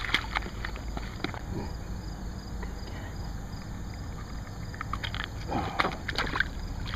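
Steady low rumble of wind and river water, with scattered small clicks and scrapes as a channel catfish is unhooked on the gravel at the water's edge.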